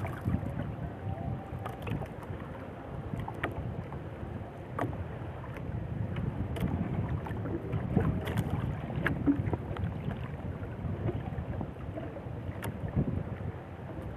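Wind buffeting the microphone in a small boat at sea, a steady low rumble with scattered light clicks and knocks.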